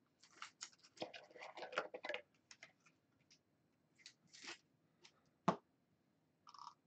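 Baseball trading cards and a plastic card holder being handled: faint rustling, sliding and light clicks, with one sharper tap about five and a half seconds in.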